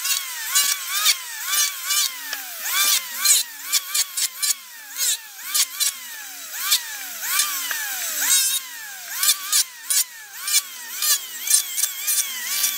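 Electric hand planer shaving a wooden axe handle. Its motor whine sags in pitch each time the blade bites and jumps back up between cuts, about twice a second, with rough crackling from the wood being cut.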